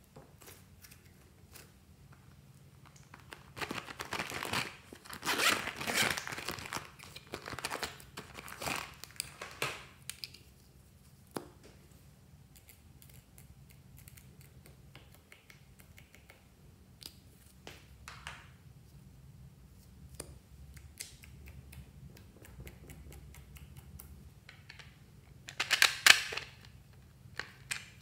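Hands working slime and small plastic containers, heard as bursts of crinkling and crackling with scattered clicks. There is a long stretch of crinkling in the first third and a short, loud burst near the end.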